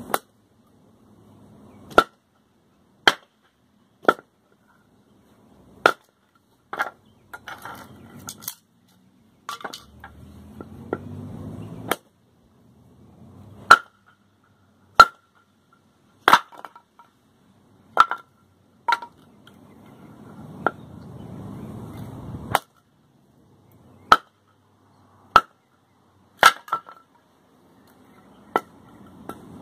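Black Legion survival machete chopping into a block of wooden board, about twenty sharp strikes unevenly spaced a second or two apart, splitting the wood.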